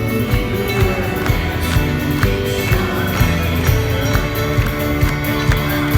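Live folk-rock band playing an instrumental passage, with held chords over a steady kick-drum beat about twice a second.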